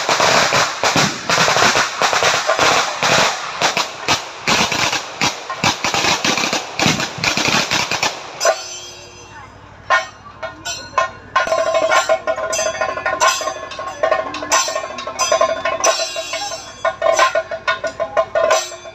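A string of firecrackers crackling in a fast, dense run for about eight seconds, then stopping. Festival music with drumming and a held, wavering melody line follows.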